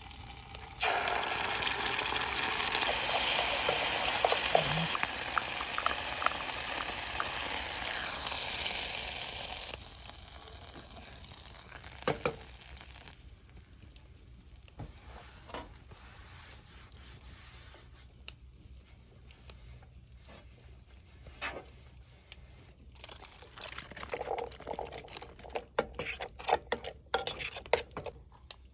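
A loud sizzling hiss starts suddenly about a second in and dies away after about nine seconds. It is followed by quiet scattered clicks and taps, then quicker tapping near the end.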